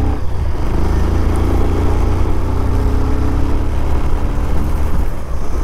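A vehicle on the move: a steady low rumble of engine and wind noise on the microphone while travelling along the road.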